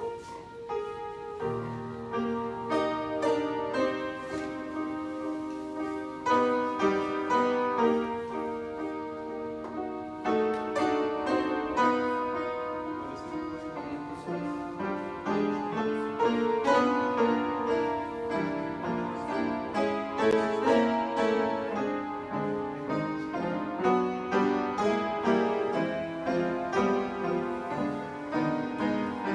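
An upright piano played by a boy: a continuous piece of struck notes and chords, with louder passages swelling up several times.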